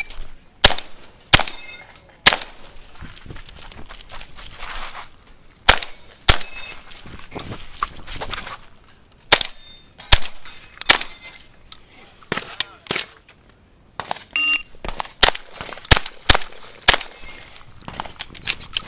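Shotgun fired rapidly over and over, more than a dozen sharp shots in quick groups with short pauses between them, during a timed IPSC shotgun stage. A few shots are followed by a brief ring.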